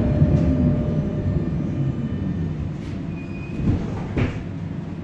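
Tatra KT8D5 articulated tram running on rails: a low rumble that gradually fades, with a short high squeal about three seconds in and two knocks shortly after.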